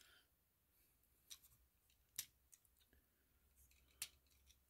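Near silence broken by a few faint, sharp plastic clicks, the clearest about one, two and four seconds in, from a plastic Transformers action figure being handled and moved.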